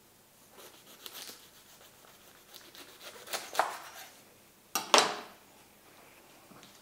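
Crisp savoy cabbage crunching and crackling as it is cut and handled on a cutting board: several scattered crunches, the loudest about five seconds in.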